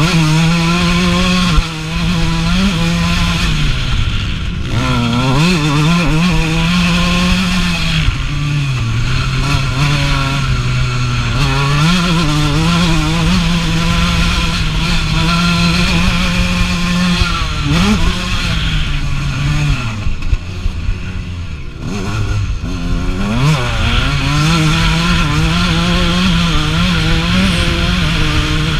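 1989 Suzuki RM125's two-stroke single-cylinder engine running hard around a motocross track, recorded close on the bike. The engine note holds steady, then dips and climbs again several times as the rider works the throttle through the track's turns.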